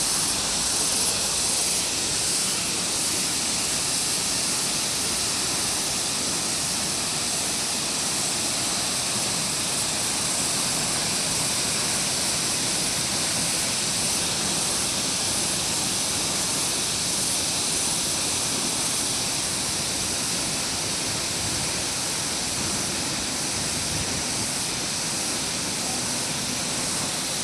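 Waterfall: falling water rushing steadily, a constant hiss with most of its energy high up.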